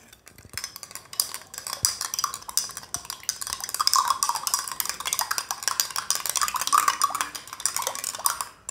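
Metal spoon stirring sugar crystals into a glass of water, rapidly clinking and scraping against the glass as the sugar dissolves.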